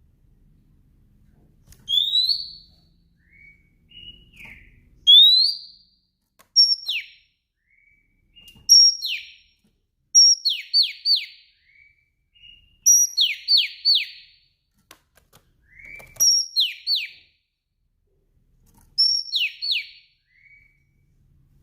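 Female Oriental magpie-robin calling: short whistled phrases of a quick rising note, then two or three fast downslurred notes. The phrases repeat every two to three seconds.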